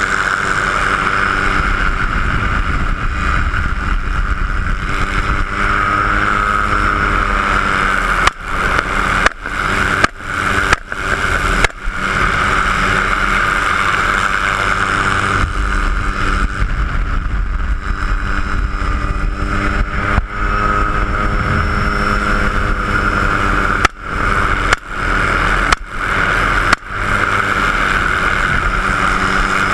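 Helicopter turbine whine and rotor noise inside the open-door cabin, with wind rush. About a third of the way in come five sharp bangs roughly a second apart, and near the end four more; these are gunshots, each one briefly knocking the recording level down.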